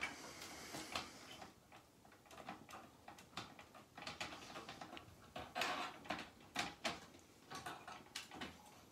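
Small irregular clicks and scrapes of cable connectors being pried loose from the pin headers of a synthesizer circuit board.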